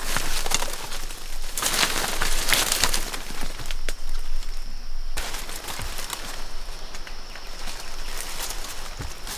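Rustling and crackling of dry leaf litter, twigs and undergrowth under a person's movements and footsteps, busiest in the first few seconds. A faint steady high tone comes in about five seconds in.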